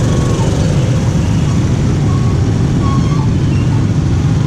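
Motorbike riding at street speed among many other bikes: a steady low rumble of engine and wind on a handlebar-mounted microphone, with a few short, faint beeps from the surrounding traffic.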